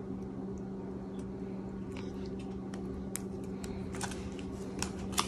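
Faint handling sounds of fingers pinching diced pico de gallo out of a small plastic container and sprinkling it on, with scattered light clicks and ticks from about two seconds in, over a steady low hum.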